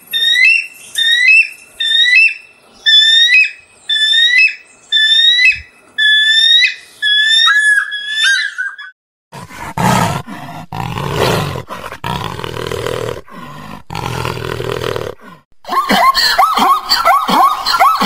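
Three animal calls in turn. First a bald eagle gives a long series of high, thin, piping calls, about one and a half a second. About nine seconds in, a black big cat growls: a deep, rasping sound in several long breaths. From about sixteen seconds a zebra takes over with a rapid series of yelping barks that fall in pitch.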